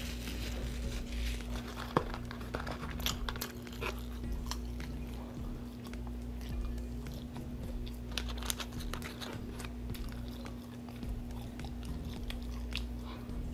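Close-miked chewing of a fast-food burger and French fries: wet mouth clicks and small crunches, scattered irregularly. A steady low electrical hum runs underneath.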